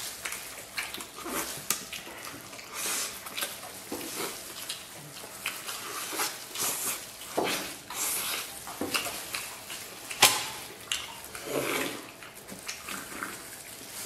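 Close-up eating sounds: wet chewing and lip-smacking as roast lamb, charred on the outside, is torn and bitten off the bone, in short irregular bursts with a sharp click about ten seconds in.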